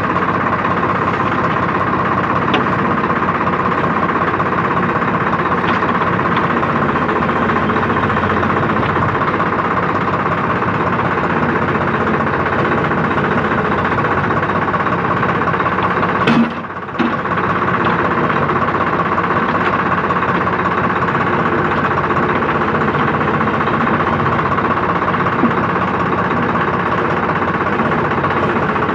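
Engine of a mini backhoe running steadily while its hydraulic boom and bucket are worked to dig soil, with a brief half-second drop in the sound about halfway through.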